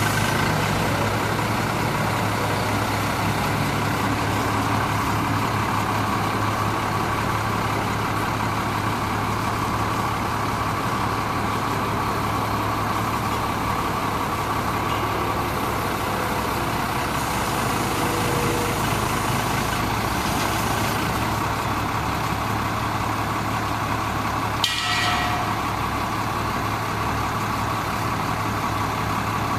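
Cummins 5.9-litre diesel engine of a Ford F800 bucket truck running steadily while it powers the hydraulic aerial boom. A single sharp click comes near the end.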